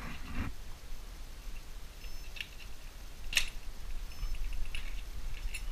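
Crimping pliers squeezing a metal crimp sleeve tight on leader wire: quiet handling with a small click, then one sharp click about three and a half seconds in.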